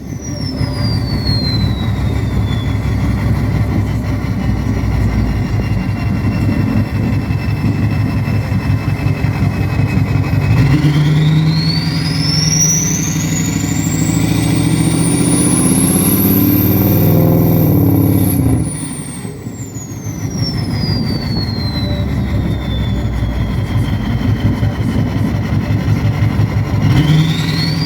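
Ford 6.0 Powerstroke V8 turbo-diesel, straight-piped, idling, then revved about ten seconds in and held for about seven seconds before dropping back to idle, with another rev near the end. The turbo's high whistle winds down in the first few seconds, then climbs with the rev and falls away after it. The owner says the engine has bad injectors.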